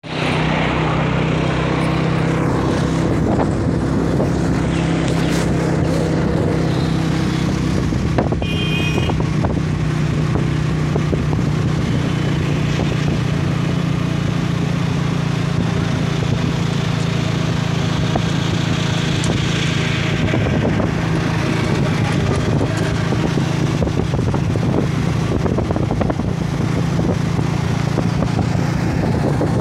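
A two-wheeler's engine runs steadily while riding, with road and wind noise over the microphone. A short high beep sounds about eight and a half seconds in.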